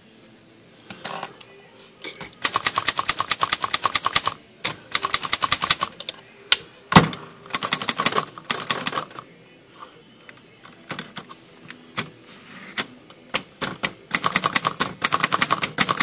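Hermes Rocket manual portable typewriter being typed on in several quick runs of keystrokes, with pauses between them; the typebars clack against the platen. There is a single heavier knock about seven seconds in. The shift mechanism has just been freed of a small piece of debris that was binding it.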